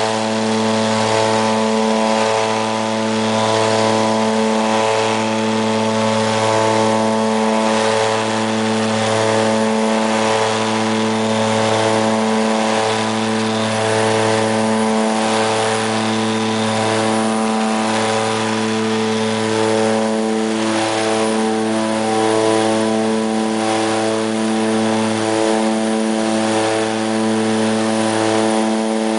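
The Embraer EMB 110 Bandeirante's Pratt & Whitney PT6A turboprop engines and propellers running steadily, heard from inside the cabin. It is a loud drone with a slow throbbing beat about once a second.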